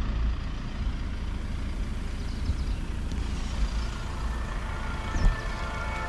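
Wind buffeting an outdoor camera microphone: a steady, uneven low rumble with a light hiss above it.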